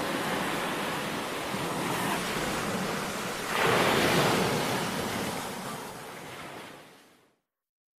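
Ocean surf: a steady rush of waves, with a louder surge a little past halfway, then fading out to silence near the end.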